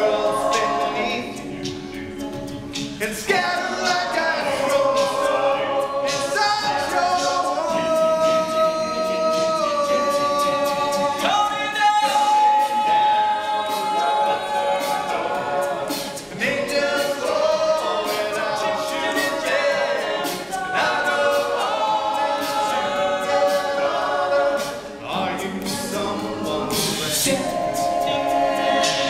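Male a cappella group singing sustained chords in close harmony, without instruments; about halfway through, one voice holds a single long note above the chords.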